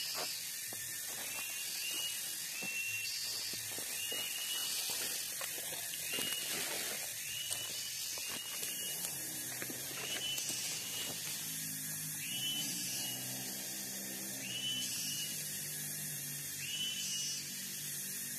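Forest ambience: a high, steady hiss of insects with a short call repeated about once a second. Rustling and handling knocks in the first half, and a low steady hum coming in about halfway.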